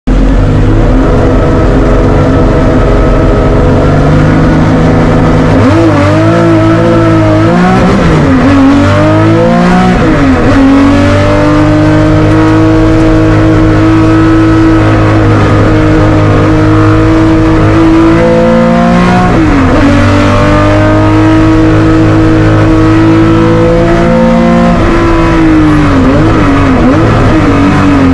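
Porsche 911 Group 4 race car's air-cooled flat-six engine at full throttle, heard from inside the stripped cabin. It holds high revs, and its pitch drops and climbs back several times at gear changes and corners.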